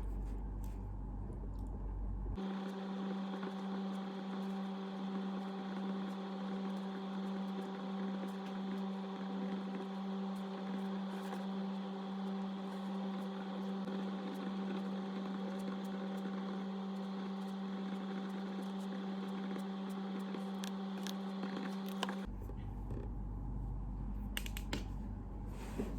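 An electric appliance running with a steady, even hum. It starts abruptly about two seconds in and stops a few seconds before the end, with a few faint clicks around it.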